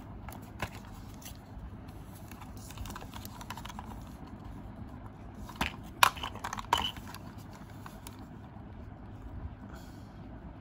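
Hands handling a computer mouse and its packaging: scattered light clicks and rustling, with a brief cluster of sharper knocks about six seconds in.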